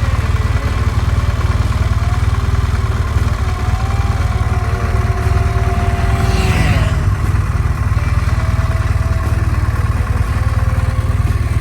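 BMW GS motorcycle running steadily at road speed: a constant low engine drone mixed with wind rush, with a brief high hiss a little past halfway.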